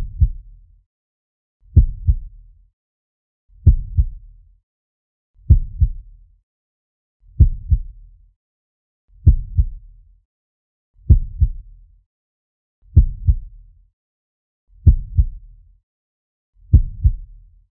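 Slow heartbeat sound effect: a low lub-dub double thump repeating steadily about once every two seconds, with silence between beats.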